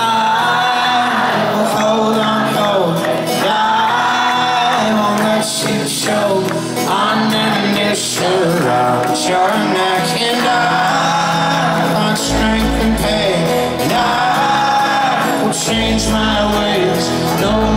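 Live folk-rock band music: strummed acoustic guitar and keyboard with singing. A deep bass note comes in about twelve seconds in and again near sixteen seconds.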